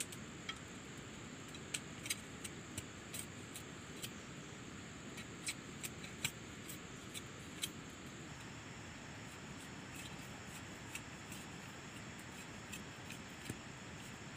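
Knife blade cutting and shaving a thin bamboo strip: irregular sharp clicks and ticks, frequent at first and thinning out after about eight seconds, over a steady faint hiss.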